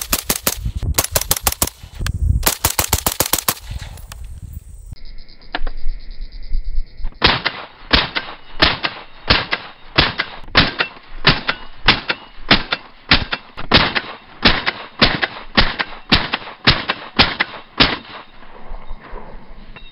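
Suppressed IWI X95 Tavor rifle in 5.56 with an OSS HX-QD suppressor, fired in rapid semi-automatic strings: two fast bursts of shots in the first few seconds, then, after a cut, a long steady run of shots at about two to three a second.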